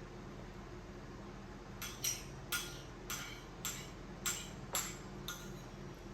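A spoon clinking against a bowl: a run of about eight sharp, ringing clinks, roughly two a second, over a steady low hum.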